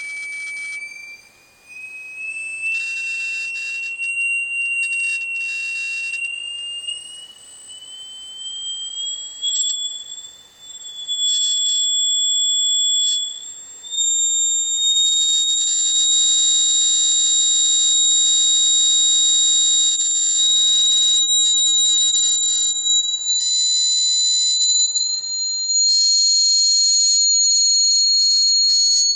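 Two high-pitched whistling tones held steadily over each other, the lower one slowly rising and the higher one slowly falling so that they draw closer together, with patches of hiss behind them; the sound gets louder about halfway through.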